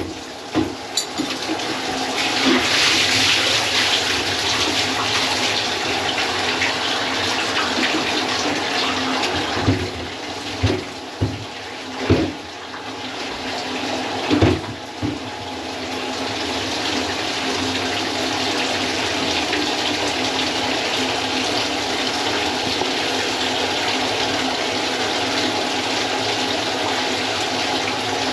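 Water running steadily in a bathroom, a continuous rushing like a toilet or tap, with a handful of short knocks and clunks about ten to fifteen seconds in.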